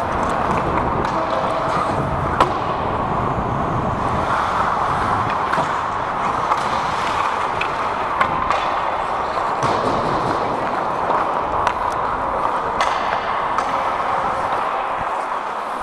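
Ice hockey skates gliding and scraping on the ice in a steady hiss, with a few sharp clacks of sticks and puck.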